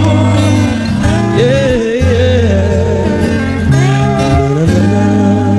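A Brazilian pagode song plays: a sung melody weaves over steady, sustained bass notes.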